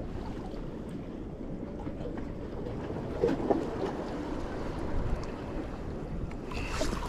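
Steady low rush of wind and surf along the jetty, with a few faint clicks about three seconds in.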